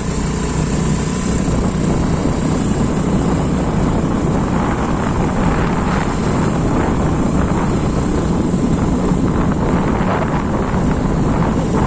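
A vehicle engine running at a steady speed under heavy wind rush on the microphone, as heard while riding.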